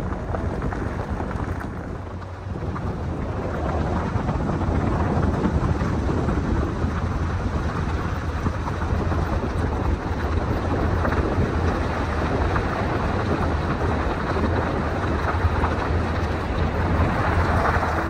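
Car driving along a paved road: a steady rush of tyre and wind noise over a low rumble, growing a little louder about three seconds in.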